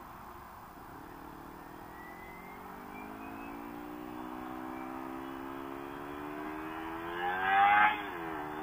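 Kawasaki Ninja 300's parallel-twin engine accelerating under way, its pitch climbing slowly over several seconds with the rush of riding wind. It revs louder near the end, then its pitch drops sharply at an upshift.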